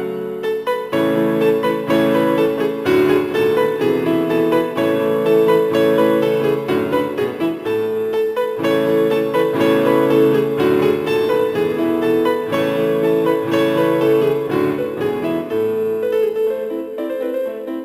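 Background music led by piano or keyboard, a steady run of notes.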